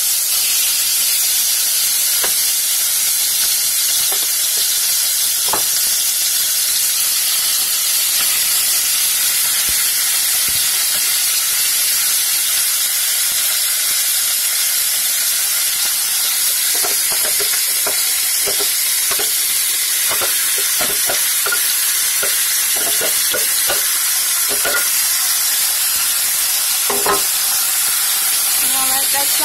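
Diced chicken breast sizzling in hot vegetable oil in a nonstick pot: a steady frying hiss. In the second half come scattered light clicks and knocks from a spoon stirring the pieces against the pot.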